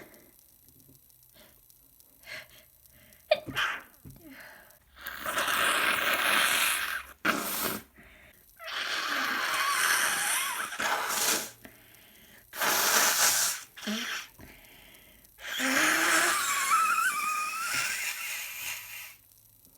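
A sick person sneezing wetly. A few short sharp bursts come first, then five longer noisy bursts of one to three seconds each, with short pauses between them.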